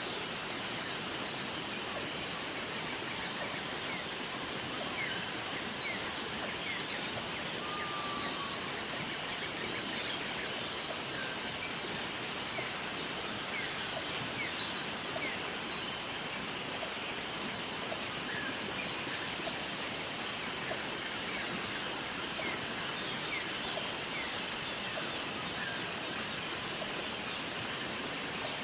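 Waterfall ambience: a steady rush of falling water, with a high, even buzz that comes in stretches of about two seconds roughly every five and a half seconds, and scattered short bird chirps.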